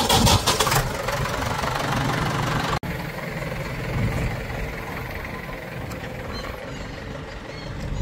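Diesel engine of heavy farm or construction machinery running steadily, with a loud harsh noise over the first second and a momentary drop-out about three seconds in.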